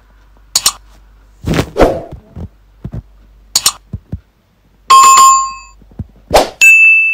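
Subscribe-button animation sound effects: several quick clicks and swishes, then a bright chime about five seconds in and a bell ding near the end whose tone rings on.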